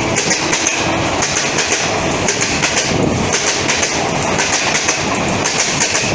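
Passenger train running through at speed, its wheels clattering over the rail joints in a steady, loud rush of noise.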